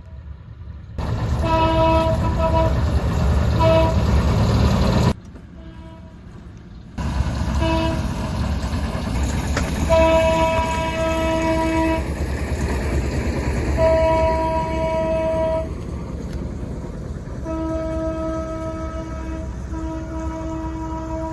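Train horns sounding over the rumble of passing trains: a run of short toots, then several longer blasts, each held on one steady pitch. The sound cuts abruptly a few times where separate clips are joined.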